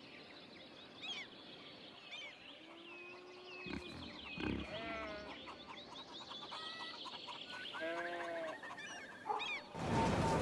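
Birds calling: many short chirps and sweeps throughout, a longer held call a little before the middle, and a pitched honking call about three-quarters of the way in.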